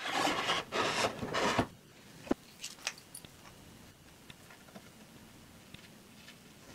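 Three quick rasping scrapes as a wooden post and a bar clamp are shifted into place on a wooden deck, followed by a sharp click and faint, sparse ticks of a hand driver at the post's base.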